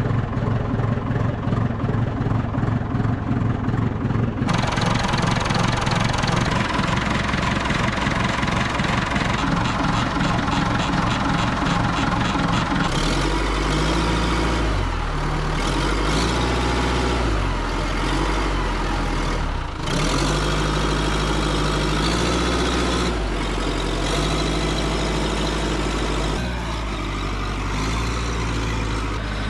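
Old backhoe loader's engine running steadily, its low note shifting a few times in the second half.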